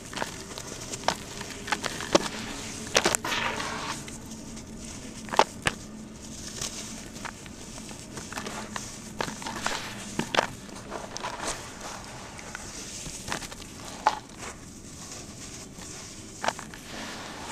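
Hands crumbling dry, dusty reused cement into water and squeezing it: irregular gritty crunches and crackles with sharp clicks, over a soft wet rustle.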